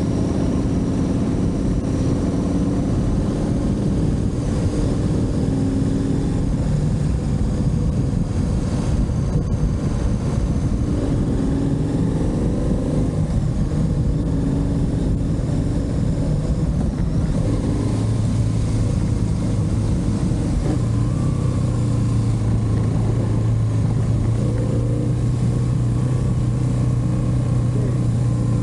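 Motorcycle engine running while riding, its pitch rising and falling with the throttle and then holding steady from about two-thirds of the way through, over a constant low rush of road noise.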